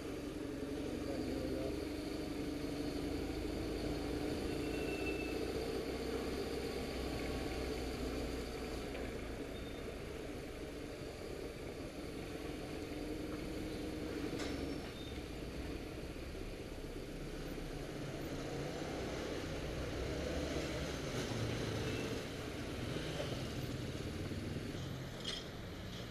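BMW touring motorcycle's engine running at low speed in city traffic, heard from the bike itself, with a steady engine note over wind and road noise. The engine note is stronger in the first half and eases off after that.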